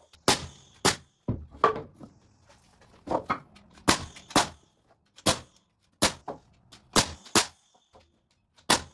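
Pneumatic framing nailer firing nails into 2x4 lumber: about a dozen sharp shots at irregular intervals, some in quick pairs.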